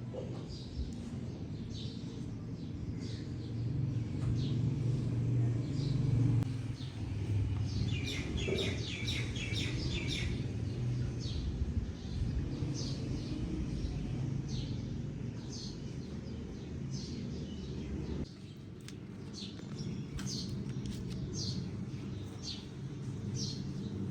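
Small birds chirping in short high calls, repeated every second or so, with a quicker run of chirps for a couple of seconds near the middle, over a steady low rumble.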